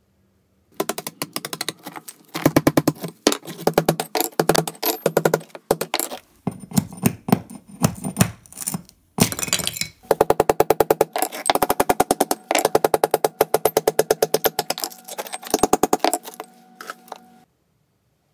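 A fast, dense run of sharp metal-on-metal strikes, a mini sledge driving a cold chisel into the mortar joints of brick veneer, with a ringing tone under the blows and short breaks about six and nine seconds in.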